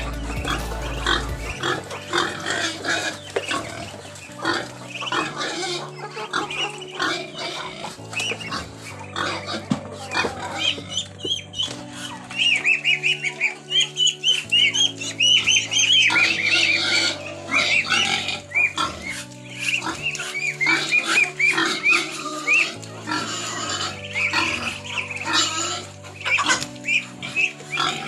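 A backyard flock of Muscovy ducks, ducklings and chickens calling, with many short high peeps crowding in from about halfway through, over background music.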